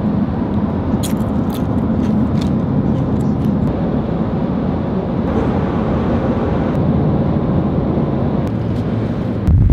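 Steady road and engine noise of a car cruising at highway speed, heard from inside the cabin. Near the end it turns suddenly louder and deeper.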